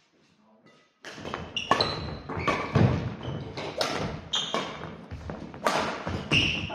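Badminton rally on a wooden gym floor: sharp racket strikes on the shuttlecock, sneakers squeaking briefly and feet thudding on the boards, all starting about a second in.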